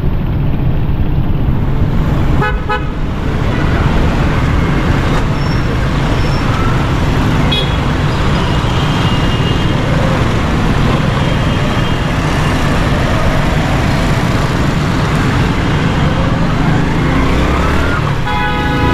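Motorcycle engine running steadily in slow, congested city traffic on a wet road, under a continuous wash of traffic noise. Short vehicle horn toots sound about two and a half seconds in, a few times in the middle, and again near the end.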